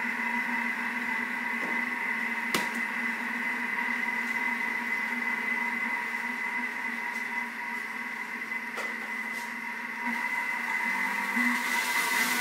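Thermomix food processor's motor running steadily at low speed, a high whine over a lower hum, mixing eggs into creamed butter and sugar. A single sharp click comes about two and a half seconds in, and the motor grows a little louder near the end.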